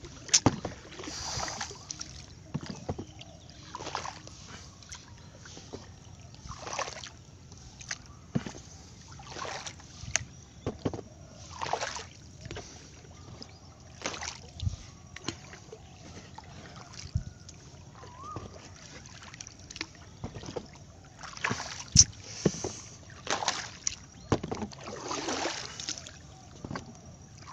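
Water splashing and sloshing beside a small boat, with a swish every two to three seconds and occasional sharp knocks, the loudest about two-thirds of the way through.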